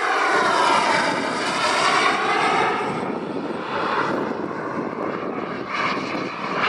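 JetCat 160 model jet turbine of a Skygate Hawk radio-controlled jet in flight. It is loudest over the first two or three seconds, its pitch dipping and then rising, then runs on steadier and a little quieter.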